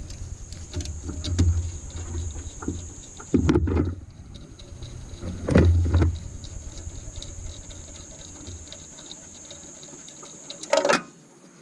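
A few loud clunks and knocks of tools and engine parts being handled during a cylinder head removal: one about 3.5 s in, one near 6 s and a short one near the end, over a low uneven rumble.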